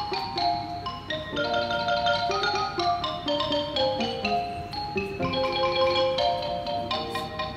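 Background music: a light melody of short, struck notes in quick succession.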